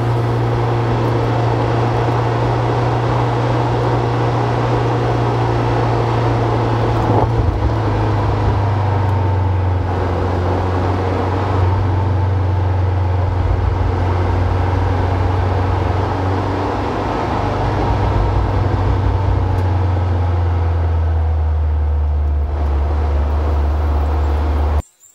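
Cabin drone of a Honda Civic Type R's B16B four-cylinder engine under way, with tyre and road noise from the wet road. The engine note steps down in pitch twice, and the sound cuts off suddenly near the end.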